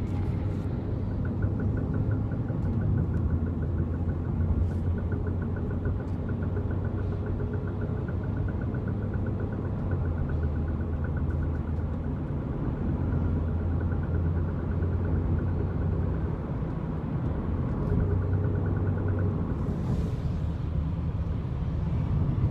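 2009 BMW 128i driving under acceleration, a steady low engine and road drone with a fast, even tapping from the rear of the car that stops near the end. The cause of the knock is unknown to the owner.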